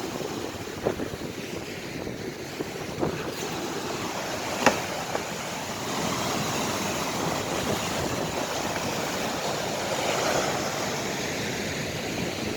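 Sea surf washing on the shore with wind on the microphone, a steady rushing noise. A few sharp knocks or clicks cut through it, the loudest a little under five seconds in.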